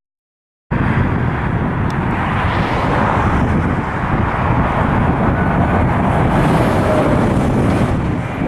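Jet airliner engine noise, a loud steady rushing that starts abruptly after a moment of silence, with wind buffeting the microphone.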